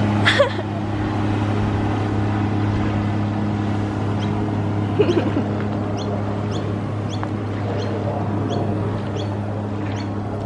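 Jet ski engine running at a steady cruise, a constant drone. From about four seconds in, a bird chirps repeatedly, about twice a second.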